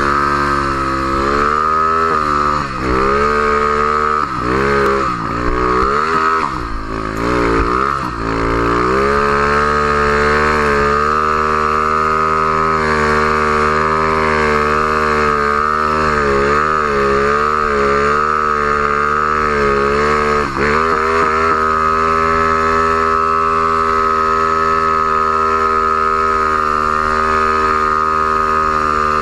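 Snow machine's engine driven through deep powder, its pitch rising and falling with repeated throttle changes for the first eight seconds or so and dipping once about twenty seconds in, otherwise running steadily.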